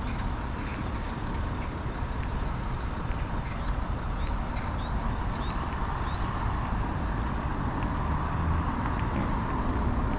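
Steady road traffic rumble that swells a little near the end, with short high chirps repeating over it.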